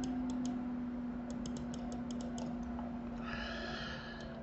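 Computer mouse button clicking in quick runs, about a dozen sharp clicks mostly in the first two and a half seconds, over a steady low hum.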